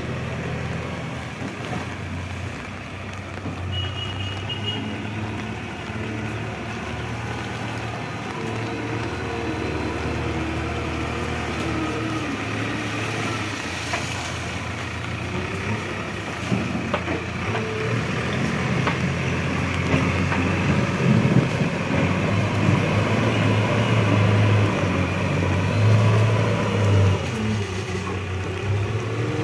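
JCB 3DX backhoe loader's diesel engine running steadily as the machine works through mud. It grows louder for about ten seconds in the second half, then eases. A brief high beep sounds about four seconds in.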